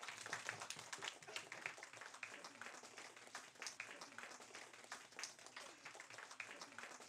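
Faint, scattered clapping from a small group of people in a room: many quick, irregular hand claps.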